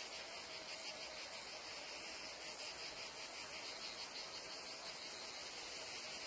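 Meadow insect chorus: crickets and cicadas chirring in a dense, steady, high-pitched wash with a fine pulsing texture, and a faint low steady tone beneath.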